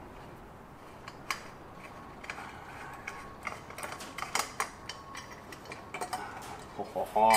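Irregular light metallic clinks and taps of metal parts as the last bolt comes out and the intake manifold of a Franklin 165 aircraft engine is worked loose by hand.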